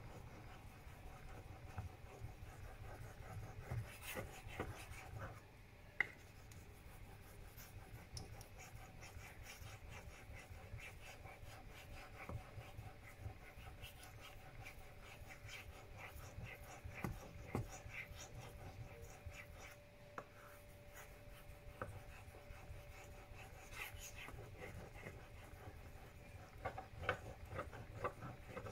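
Straight razor blade being stroked across a fine 5000-grit whetstone: faint, repeated scraping strokes of steel on stone.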